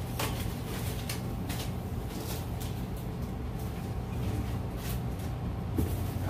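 Rustling and light knocks of a cardboard box being handled and its contents rummaged through, over a steady low hum.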